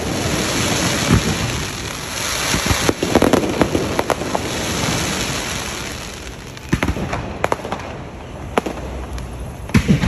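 Fireworks display: a dense, rain-like crackle from bursting shells, with sharp bangs through it. Past the middle the crackle thins out, leaving separate sharp bangs toward the end.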